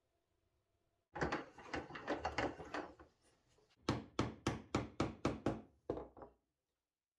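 Bench chisel being driven into the corner of a routed mortise in a European ash table leg to square it. A dense run of knocks and scraping is followed by about nine sharp strikes on the chisel, about three a second.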